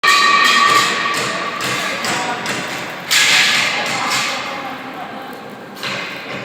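Electric arc welding: the arc's noisy hiss, starting suddenly and flaring up again about three seconds in and near the end, fading a little in between.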